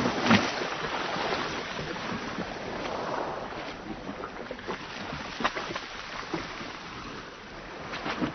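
Sea waves washing and slapping against a boat's hull. A louder wave breaks right at the start, then the wash settles, with a few sharp splashes against the side.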